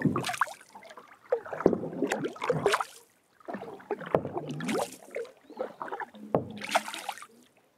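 Wooden canoe paddle stroking through the water beside a canoe, splashing and gurgling with each pull, about one stroke every two seconds.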